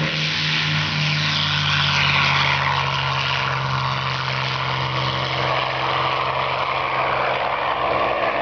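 P-51 Mustang's V-12 piston engine at full takeoff power, a steady propeller drone as the fighter rolls down the runway and lifts off. Its deep low note weakens after about five seconds as the plane climbs away.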